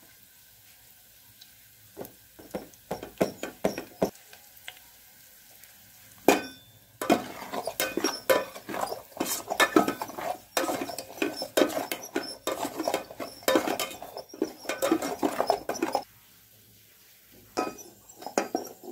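A wooden spatula stirring and scraping onions and chili powder around the bottom of an electric cooker's pot. A few light knocks come first, then about nine seconds of continuous scraping and clattering, then a few more knocks near the end.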